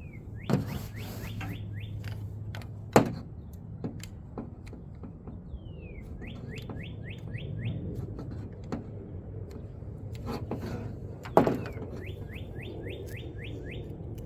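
A songbird sings the same short phrase three times: a falling note followed by a quick run of rising chirps. A few sharp knocks, the loudest about three seconds in and again near eleven seconds, come from work on the climbing tree stand.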